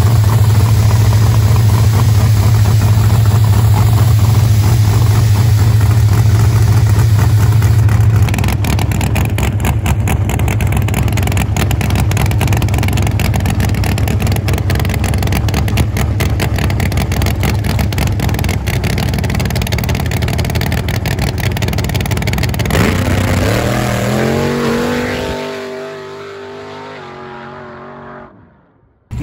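Street race car engine running hard at high revs, then the exhaust note drops in pitch as the car comes off the throttle and slows, fading away near the end.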